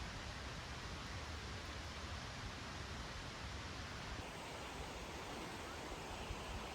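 A steady, even rushing hiss of outdoor noise with no distinct events; its character changes slightly a little past halfway.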